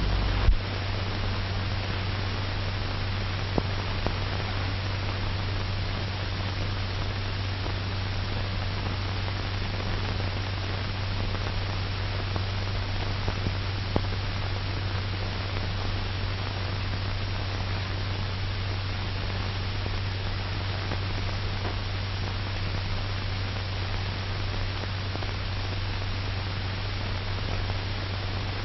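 Steady hiss and low hum of an old film soundtrack with no narration, with a couple of faint clicks.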